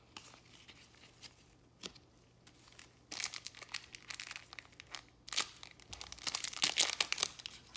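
Wrapper of a 2021 Bowman baseball card pack crinkling and tearing open at its crimped top seal, starting about three seconds in. Before that, only a few soft ticks of trading cards being handled.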